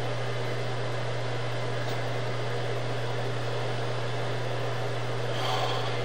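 Steady electrical hum with hiss from a sewer inspection camera system's audio. There is a brief faint rustle near the end.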